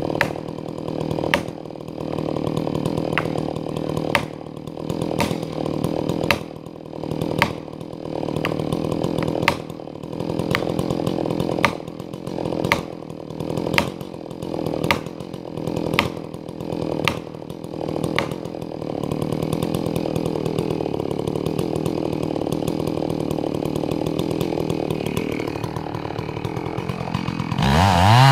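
Chainsaw cutting into the trunk of a messmate eucalyptus being felled. The engine dips and recovers about once a second as the saw is worked in the cut, then runs steadily under load, and revs up sharply near the end.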